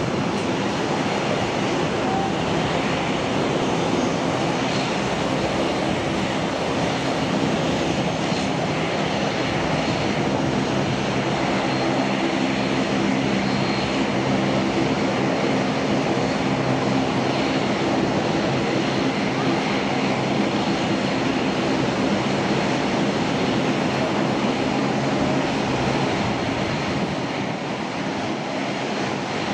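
McDonnell Douglas MD-82 jet airliner on final approach, its two rear-mounted Pratt & Whitney JT8D turbofans giving a steady jet noise with a low hum running through it.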